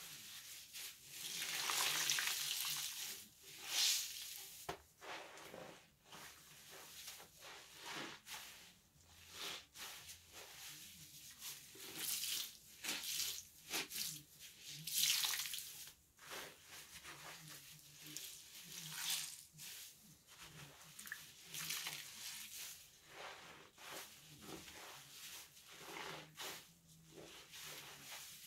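Water running in short irregular surges, with small clicks and knocks in between.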